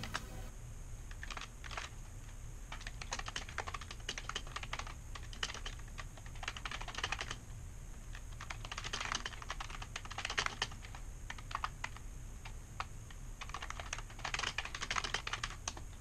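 Typing on a full-size computer keyboard: irregular flurries of quick key clicks broken by short pauses.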